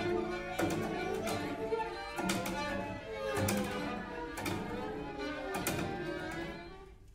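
String quartet playing contemporary music: bowed chords with scratchy attacks, each cut off by a sudden new attack about every second. The sound fades away near the end.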